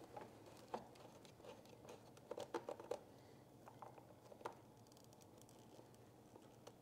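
Faint clicks and rustling of plastic wiring-harness connectors and wires being handled, with a quick run of several clicks a little over two seconds in.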